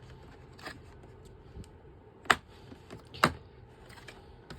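Sharp clicks and clacks of metal hand tools being handled in and pulled from a molded plastic tool case, a few scattered knocks with the two loudest about a second apart past the middle.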